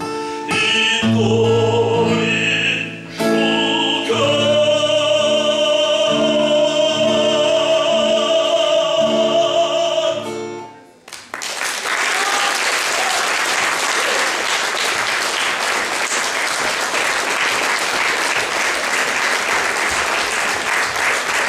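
A male operatic voice sings the closing phrase of a Ukrainian romance over strummed acoustic guitar chords, holding one long high final note. The song ends about eleven seconds in and the audience breaks into steady applause.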